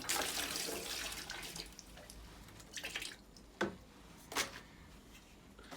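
System water running and dripping out of a drained-down magnetic central-heating filter as its brass body is taken off, trailing away over the first two seconds. A few sharp clicks and knocks of the metal parts being handled follow.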